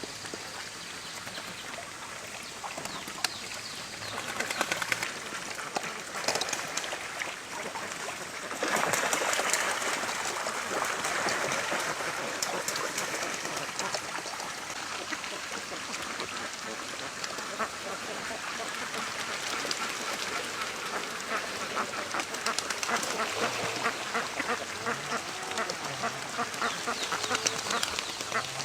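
A large flock of domestic ducks quacking in a dense, continuous chatter that grows louder about nine seconds in.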